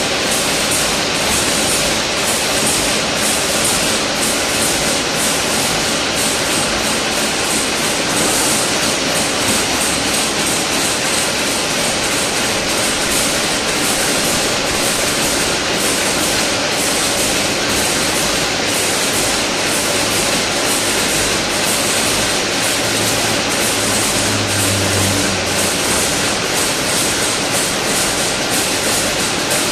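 Fully automatic chain link fence weaving machine running: a loud, steady mechanical noise with fast repeating ticks from the wire-weaving mechanism.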